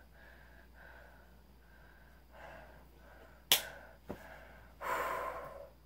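A boy breathing softly close to the microphone, about one or two breaths a second, with a sharp click about halfway through, a smaller knock just after, and a louder breathy exhale near the end.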